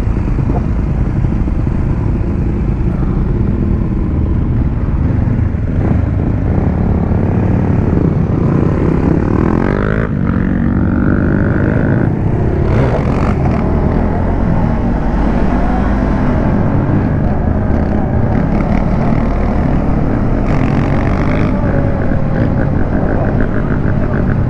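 Motorcycles on the move: engines running under a heavy steady rumble, with engines revving up and down in the middle.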